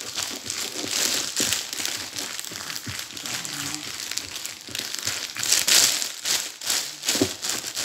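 Clear plastic bag crinkling as it is pressed down onto rice and fish packed in a jar, then lifted and gathered around the jar's mouth; loudest a little over halfway through.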